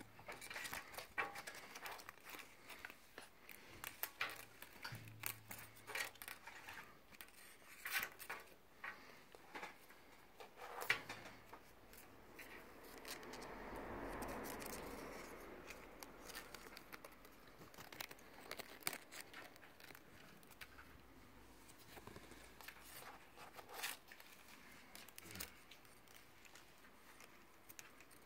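Scattered light clicks, scrapes and rustles of a cat pawing at a woven strap toy dragged through the gap between a glass door panel and its wooden frame. A longer, louder rubbing noise swells and fades about fourteen seconds in.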